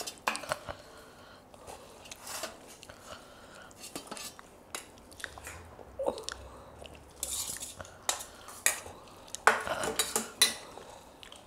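Stainless steel spoons and bowls clinking and scraping against steel plates as curry and rice are served, with wet hand-mixing and chewing between the clinks. A denser run of louder clinks comes near the end.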